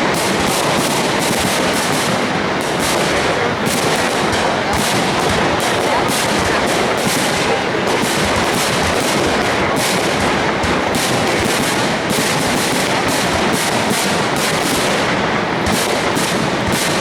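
High-altitude fireworks display: a dense, unbroken barrage of bangs and crackles, many shells bursting every second.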